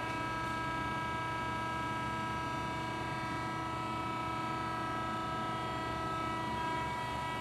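Marvel V10A band saw running, a steady hum with a constant high whine made of several fixed tones.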